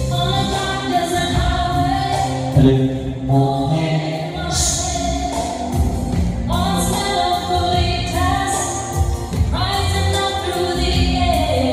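A recorded song with singing over a strong bass line, played back through a hall PA system of JBL full-range speaker cabinets on stands and RCF subwoofers.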